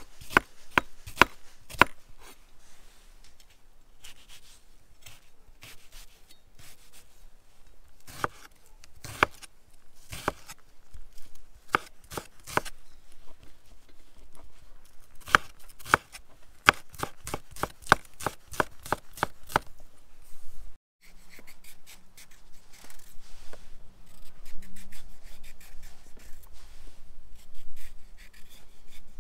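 Chef's knife dicing an onion on a wooden cutting board: sharp knocks of the blade on the board in quick runs. After a brief break about 21 seconds in, a small paring knife peeling strips off a raw carrot, a rapid run of fine scraping strokes.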